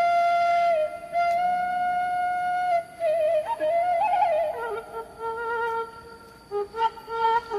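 Sundanese suling (bamboo flute) playing a slow melody. Long held notes give way about halfway to a trilled, ornamented run, then shorter, lower notes.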